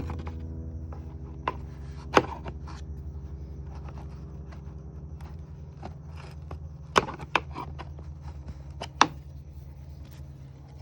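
Several sharp clicks and knocks of plastic radiator fan shroud parts being handled and slid apart, the loudest about two seconds in and about nine seconds in, over a steady low hum.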